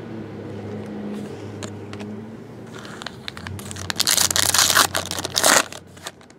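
Foil wrapper of a hockey card pack being torn open and crinkled by hand: loud crackling starting about three seconds in and stopping near the end.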